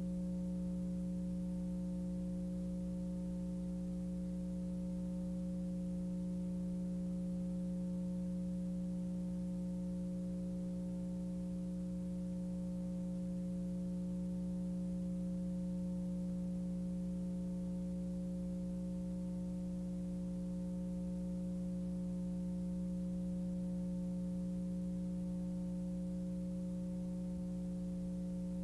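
Steady electrical hum with a few fixed higher tones over it, unchanging throughout, the strongest tone low in pitch.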